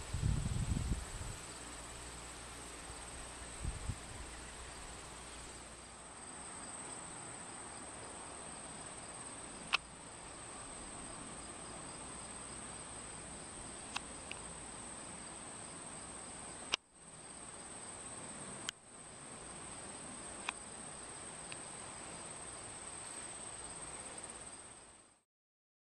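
Steady, high-pitched chirring of crickets and other insects. A few sharp clicks are scattered through it, and there are low bumps in the first few seconds. The sound stops shortly before the end.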